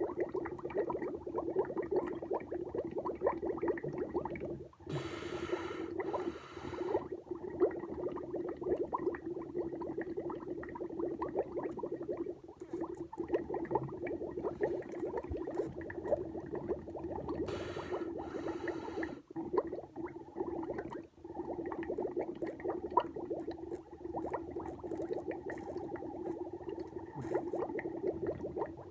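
Air blown through a drinking straw into a glass of milk, bubbling continuously with a few very short gaps. Twice, a sharp breath is drawn in through the nose while the bubbling goes on.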